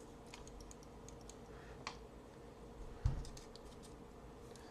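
Faint metal clicks and scrapes of a knife blade prying at the stuck, rusty second blade of a two-blade pocket knife, with a dull thump about three seconds in.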